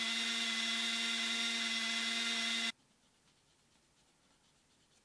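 Handheld rotary tool running at a steady high whine, which cuts off suddenly about two and a half seconds in.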